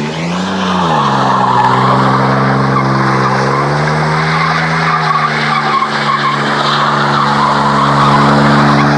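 1999 GMC Jimmy's 4.3-litre V6 held at high revs while its rear tires screech and spin through donuts in a burnout. The engine note surges and dips about a second in, then holds steady.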